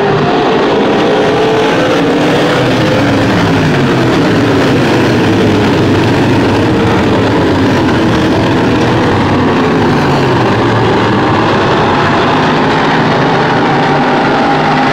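A pack of dirt-track race cars running laps together. Several engines rise and fall in pitch as they accelerate and back off through the turns, loud and unbroken.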